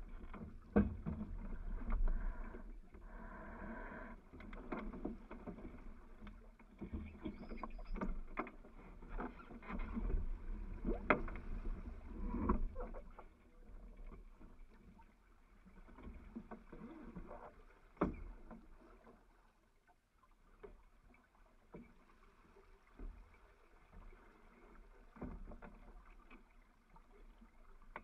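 Hunter Impala racing yacht under way: water rushing and slapping along the hull, with scattered sharp knocks and clunks from crew and gear on deck, busier in the first half and quieter after.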